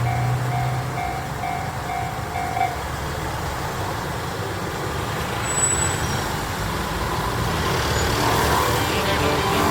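Japanese level crossing's electronic warning bell ringing about twice a second, then stopping about a third of the way in, which signals that the train has cleared. Road traffic runs steadily underneath, and music fades in near the end.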